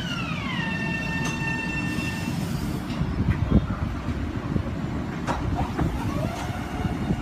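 Long Island Rail Road electric train with a high motor whine in several tones that glides down in pitch as the train slows, levels off and stops a couple of seconds in. Under it runs a steady low rumble of the train, with a few sharp clunks.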